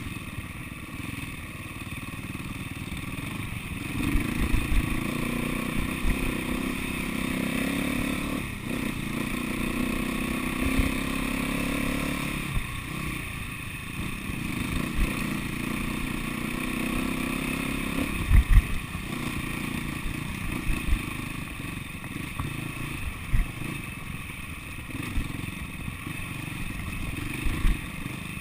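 SWM 300RS single-cylinder four-stroke dirt bike engine running at low trail speed, picking up revs now and then, with knocks and clatter from the bike jolting over rough ground; the loudest are two close knocks about two-thirds of the way through.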